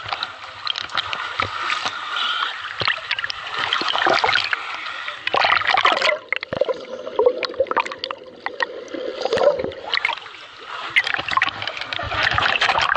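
Water splashing and sloshing around a swimmer. For about four seconds in the middle the camera goes underwater, and the sound turns muffled and low until it surfaces into splashing again.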